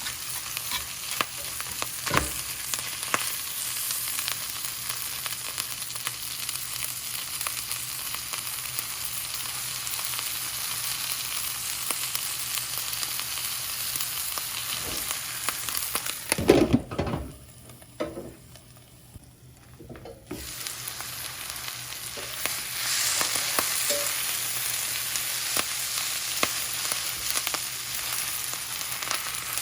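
Ingredients for pork fried rice sizzling in a hot pan as they are stirred, with small clicks of the utensil against the pan. Just after the middle a loud knock comes and the sizzle almost stops for about four seconds, then it resumes.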